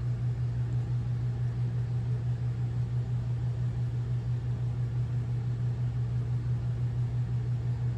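Household air circulation fan running about a foot from the microphone: a steady low hum that does not change.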